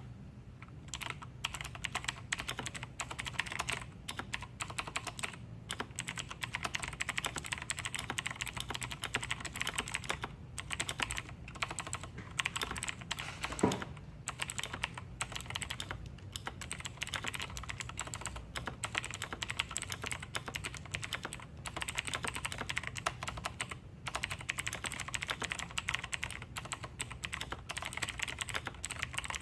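Fast, continuous typing on a Razer BlackWidow Tournament Edition Chroma V2 mechanical keyboard with clicky Razer Green switches, with one louder keystroke about halfway through.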